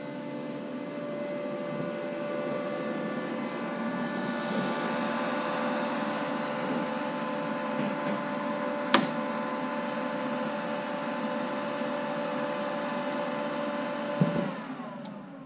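PrimeWeld MIG180 MIG welder's cooling fan running with a steady hum. A switch clicks about nine seconds in and the fan keeps running through the welder's cool-down, then a clunk near the end and the fan winds down as the machine shuts off.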